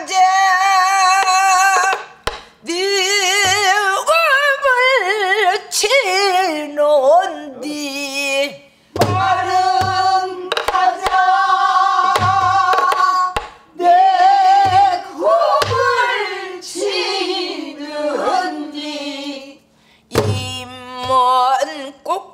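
A woman singing a Korean folk song in full voice with a deep, wavering vibrato, phrase by phrase with short breaks. She accompanies herself with sparse, irregular strokes of a stick on a buk barrel drum.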